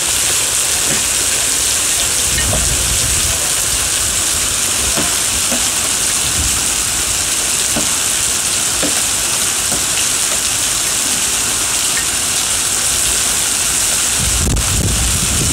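Heavy rain mixed with hail pelting wet paving stones: a steady, loud hiss with scattered faint ticks of ice striking, and a low rumble near the end.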